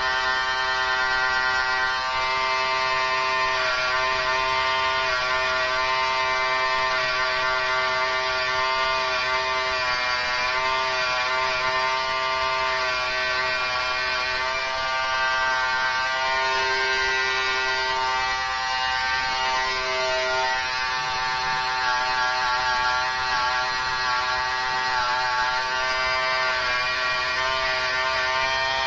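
Electric hair clippers buzzing steadily while cutting lines into short hair, the pitch wavering slightly now and then.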